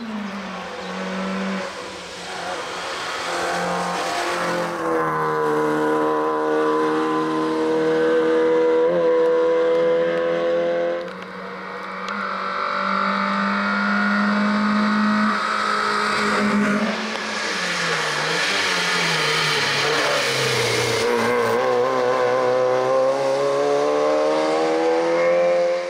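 Škoda Fabia hill-climb car's engine revving hard as it climbs. The pitch rises for several seconds at a time, then drops and starts rising again at the gear changes, with hiss from the tyres on the wet road.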